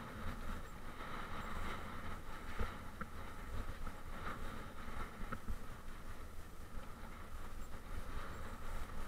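Mountain bike riding along a rough grassy dirt track, heard from a bike-mounted action camera: a steady rumble and rattle of tyres and frame, with a few sharp knocks about two and a half to three seconds in as the bike jolts over bumps.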